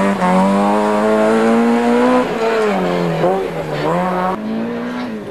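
Two-litre four-cylinder engine of a Peugeot 306 Group A rally car running hard at high revs. The note climbs steadily for about two seconds, falls and rises again twice, then holds a steady high note.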